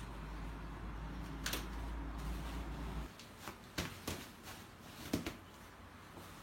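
Scattered sharp clicks and knocks of plastic and metal parts being handled, the kind heard while unpacking and fitting together a baby stroller. A low steady hum cuts off about three seconds in.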